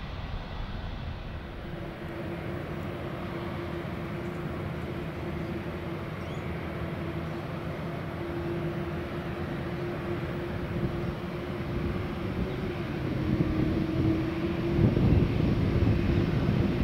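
Jet airliner engines running at low power: a steady hum with a level whine, growing louder toward the end with a gusty low rumble.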